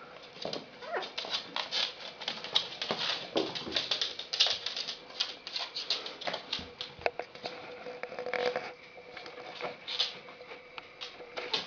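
West Highland White Terrier puppies moving and playing, making many short clicks and scuffles, with a few brief whimpers.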